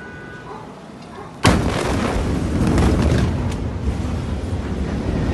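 Blast wave of a huge ammonium-nitrate warehouse explosion hitting about a second and a half in: a sudden loud boom. It is followed by a sustained loud noise with several sharp cracks.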